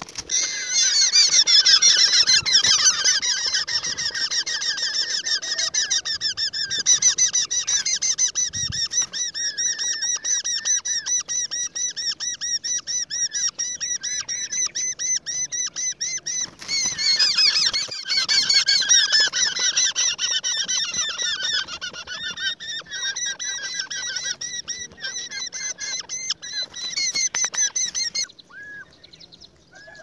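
European roller nestlings begging in the nest: a loud, dense chorus of fast, repeated high calls. It is strongest in the first few seconds and again just past halfway, and stops shortly before the end.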